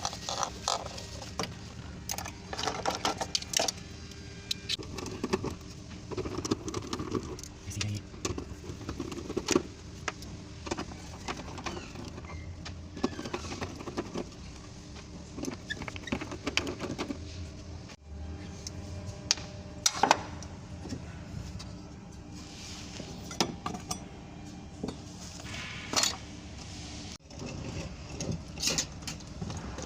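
Metal hand tools clinking and knocking against fittings in scattered irregular strokes, over a steady low hum.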